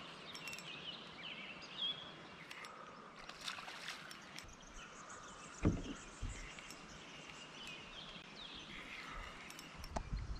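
Quiet river ambience: gently moving water around the kayak, with birds chirping, a few light clicks, and one dull thump about halfway through.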